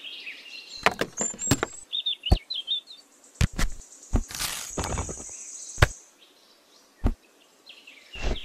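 Light taps and knocks, about ten of them at uneven intervals, as small clay bricks and a small wooden board are handled and set down on sand. Birds chirp in the background, most clearly around two to three seconds in.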